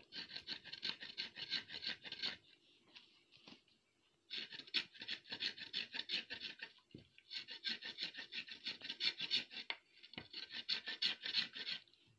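A coconut scraped against the curved blade of a boti, rasping off the leftover husk fibres in rapid strokes. The scraping comes in four bouts of about two seconds each, with short pauses between them.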